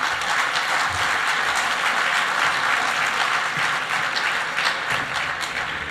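Audience applauding, a steady patter of many hands clapping that eases off slightly near the end.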